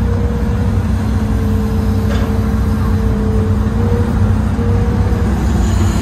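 Old Hitachi hydraulic excavator's diesel engine running steadily under working load, a deep rumble with a steady tone over it, heard from inside the operator's cab.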